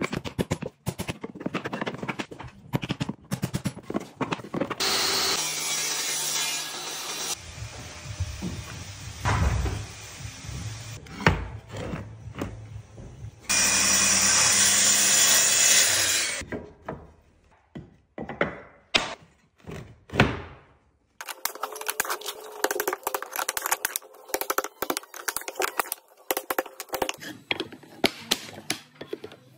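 Parquet laying: sharp hammer knocks on oak parquet strips, then about three seconds of a Festool plunge-cut track saw running steadily through the flooring along its guide rail, then a quick run of light knocks and taps as herringbone parquet blocks are fitted.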